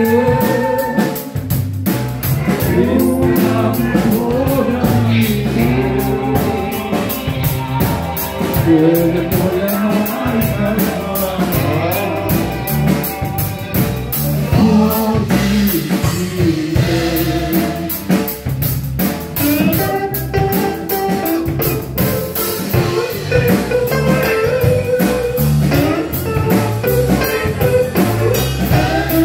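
Live blues-rock band playing: electric guitar, electric bass guitar and drums keeping a steady beat, with a voice singing over them.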